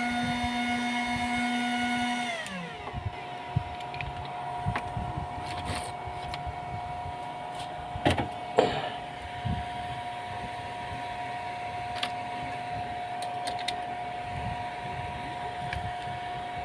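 Mini MOSFET inverter whining with a pitched tone and overtones. A couple of seconds in, its pitch slides down and falls away as the exhausted battery gives out, leaving a lower, steady electronic whine. A few sharp clicks come near the middle.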